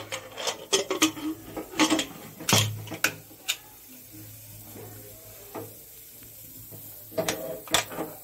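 Aluminium pressure cooker lid being fitted and locked shut: a run of metal clicks and clanks in the first few seconds, then a few more clicks near the end.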